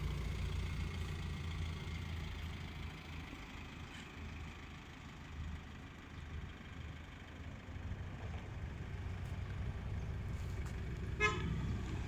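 Low steady rumble of a vehicle engine, with one short horn toot near the end.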